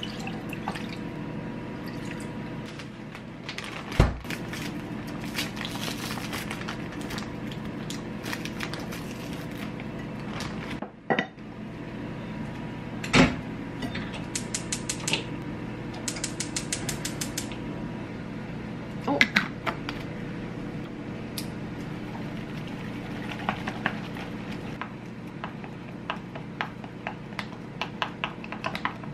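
Kitchen work sounds over a steady hum: seaweed soup poured from a glass container into a ceramic pot, with clinks and knocks of glassware, dishes and utensils. About a quarter of the way through comes a run of rapid, evenly spaced clicks from a gas stove's igniter. Near the end a utensil taps quickly against a glass measuring jug as eggs are beaten.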